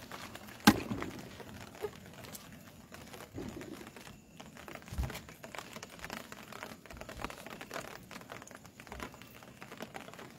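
Handling noise from a handheld phone carried while walking, with footsteps: a steady rustle and crackle dotted with small ticks, a sharp knock about a second in, and a dull thump about halfway through.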